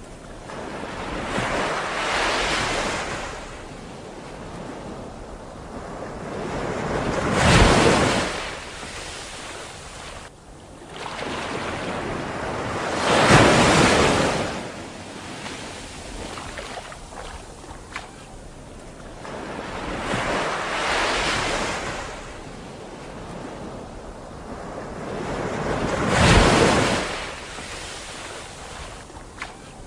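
Ocean waves breaking on a beach, each wave swelling into a surge of surf and washing away, about five in all, several seconds apart, with the ones near the middle and near the end the loudest.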